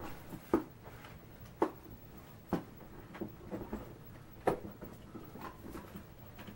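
A handbag and its contents being handled and packed: four sharp clicks and knocks, roughly a second apart, with softer handling noises between.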